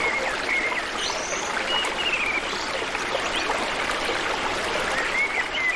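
Steady rush of a flowing stream with birds chirping over it, a few short whistled calls scattered through.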